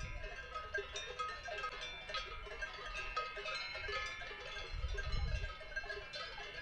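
Many cowbells on a herd of cattle clanking and ringing irregularly, the bells at several different pitches overlapping.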